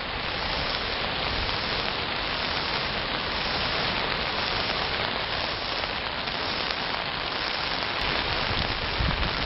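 Steady hiss of heavy rain falling and storm water running, with a low rumble near the end.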